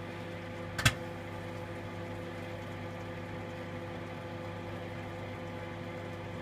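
Cheap 650 to 700 watt microwave oven running with a steady hum, and a single sharp pop of a popcorn kernel about a second in as the bag starts to pop slowly.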